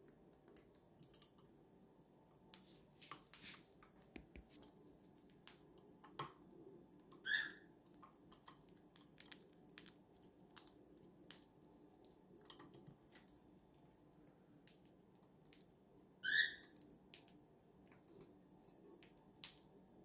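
Cockatiel pecking and cracking millet seeds: many small, faint clicks of beak and feet on the scale and table. Two short, high chirps stand out, about 7 seconds in and again about 16 seconds in.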